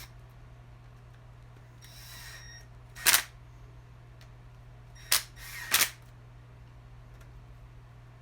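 Three sharp clicks of small metal parts or tools being handled during tile-saw motor reassembly: one about three seconds in and two close together a couple of seconds later. A softer rustle comes before them, over a steady low hum.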